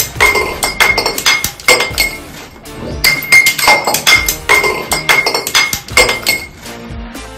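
Empty glass liquor bottle clattering and clinking as it tumbles down concrete stairs without breaking. The same quick run of clinks is heard twice in a row.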